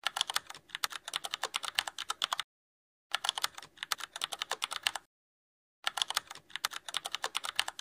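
Computer keyboard typing: rapid keystrokes in three stretches of about two seconds each, every stretch cutting off suddenly.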